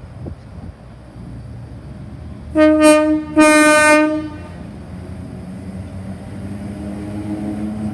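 Sydney 'Red Rattler' F-set electric train sounding its horn twice, a short blast then a slightly longer one, over the rumble of the moving carriages. Near the end a low hum rises in pitch as the train picks up speed.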